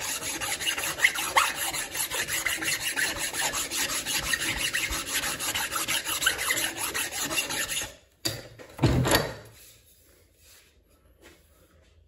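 Rasp working the ash-coloured wood of a hand-carved hatchet handle: rapid back-and-forth scraping strokes that stop about two-thirds of the way in, followed by one short, louder burst of noise.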